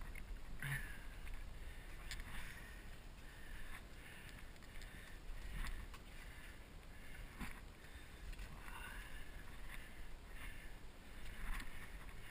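Water sloshing and splashing in irregular strokes in a cave's freshwater pool, with a few sharp knocks.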